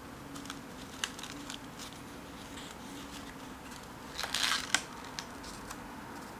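A page of a spiral-bound paper sketchbook being turned by hand: a few light ticks of handled paper, then a brief papery rustle about four seconds in that ends in a sharp click.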